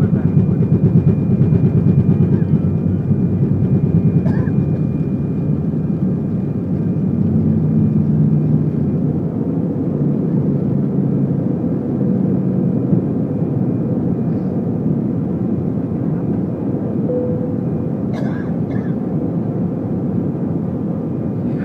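Airbus A320's jet engines at takeoff thrust, heard inside the cabin over the wing: a loud, steady roar with a thin high whine through the takeoff roll and liftoff. The roar eases slightly in the second half as the plane climbs away.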